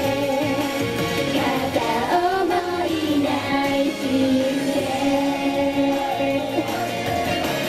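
Japanese idol group of young women singing a pop song live into microphones over a backing track played through the stage PA.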